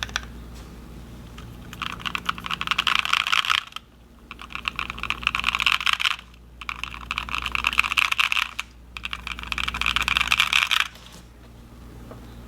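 Fast typing on an IV Works AV3x mechanical keyboard with Epsilon switches, GeekArk BoW keycaps and a foamed aluminium plate: rapid keystroke clacks in four runs of about two seconds each, with brief pauses between them and a few single keypresses at the start. A steady low hum sits underneath.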